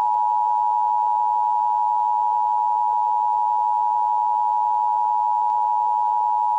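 Emergency Alert System two-tone attention signal, 853 Hz and 960 Hz sounded together as one steady, unbroken tone, the signal that an emergency alert message is about to be read. A faint hiss from the radio reception lies under it.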